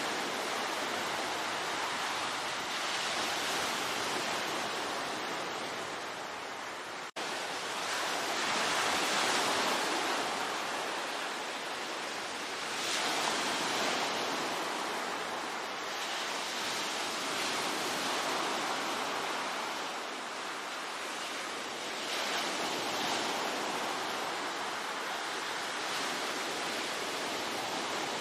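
Ocean surf: waves washing in as a steady rush that swells and eases every few seconds, with a brief cut in the sound about seven seconds in.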